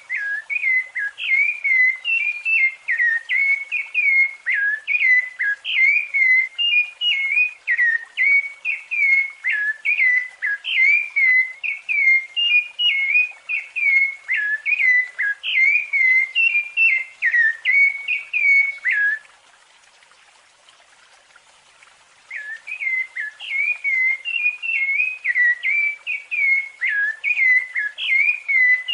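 Rufous-bellied thrush (sabiá-laranjeira) singing its fluted song: a fast, unbroken run of clear whistled notes that stops for about three seconds roughly two-thirds of the way through, then starts again.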